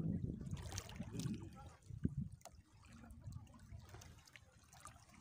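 Water splashing and lapping against a small boat's hull, with irregular small splashes, louder in the first second or two and then quieter.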